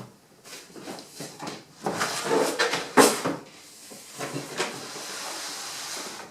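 Cardboard packaging being handled and opened: irregular rustling and scraping, a sharp knock about three seconds in, and a steady hissing rustle near the end.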